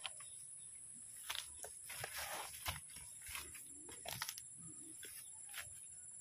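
Faint footsteps and rustling in dry leaf litter and palm fronds: a run of irregular crunches and snaps, over a steady high hiss.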